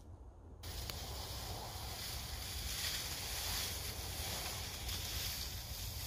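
A steady rushing hiss over a low rumble that starts abruptly about half a second in.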